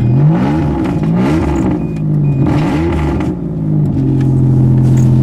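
1989 Toyota Camry's 2.5-litre V6 just after a cold start, after sitting about two months, being revved up and down several times. About four seconds in it settles to a steady idle.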